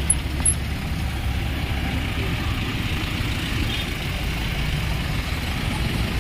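Steady low rumble of idling truck engines in a stalled traffic queue.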